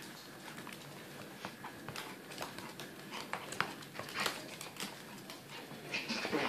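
Two Mi-Ki dogs play-wrestling on a hardwood floor: their claws click and scrabble irregularly on the boards as they grapple, with a louder scuffle near the end.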